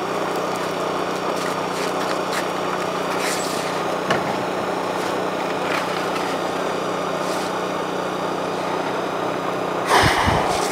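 A small engine running steadily at an even speed, with a short burst of noise near the end.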